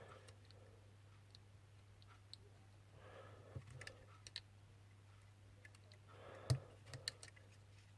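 Faint, scattered small clicks and taps from iPhone 6 parts being handled while ribbon cable connectors are pressed back onto the board, the sharpest about six and a half seconds in. A steady low hum runs underneath.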